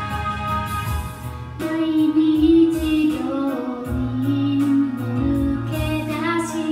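A woman singing into a microphone over a karaoke backing track with a steady beat. The instrumental plays alone for about the first second and a half, then her voice comes in.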